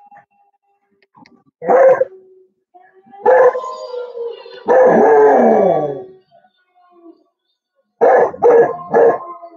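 Beagle barking and baying. A bark comes about two seconds in and another just after three, then a long bay of about a second and a half that falls in pitch at its end, and three quick barks near the end. The dog is answering wolf howls played from a video.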